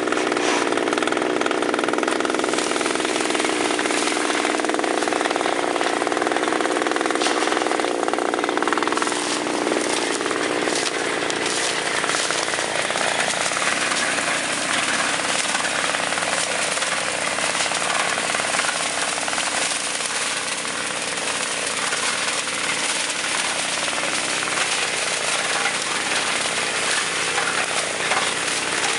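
Tractor-mounted sugarcane harvester at work: the diesel tractor engine running under load while the cutting attachment clatters rapidly through the cane, a dense, continuous mechanical rattle. The engine's lower note is strongest in the first third and eases off after about ten seconds.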